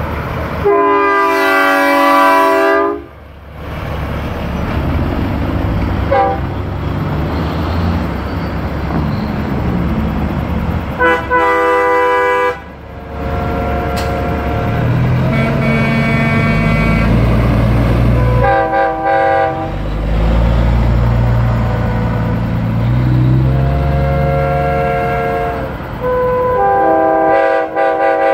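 Lit-up parade semi trucks passing with diesel engines running and air horns blasting, several long multi-tone blasts, the first about a second in and another near the end.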